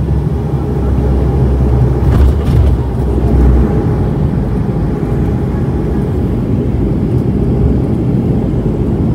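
Cabin noise of a Bombardier DHC-8-200 (Dash 8) turboprop, its twin Pratt & Whitney PW123 engines and propellers running with a heavy, steady low rumble. The deepest part of the rumble eases about four seconds in.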